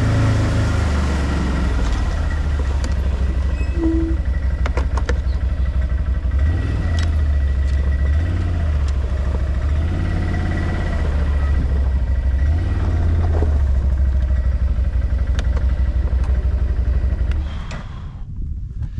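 ODES 650 quad's engine running along a dirt track, its pitch going up and down repeatedly with the throttle, with a few light rattles. It drops away near the end as the quad comes to a stop.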